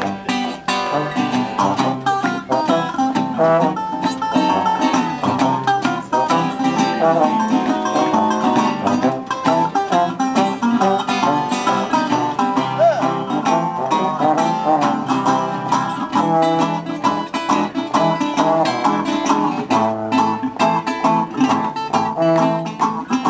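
Small acoustic band playing a lively tune: two guitars picked and strummed over a tuba bass line.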